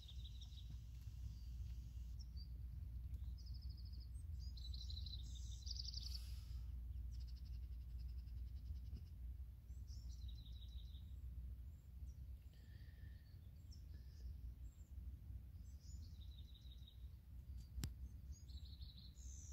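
Small birds chirping and trilling in short repeated phrases over a faint, steady low rumble of outdoor ambience, with a single sharp click near the end.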